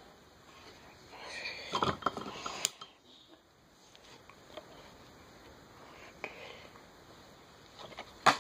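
Handling noise close to a phone's microphone: rustling and clicking as an object is moved, loudest around two seconds in and ending in a sharp click, with a few faint clicks later and another sharp click near the end.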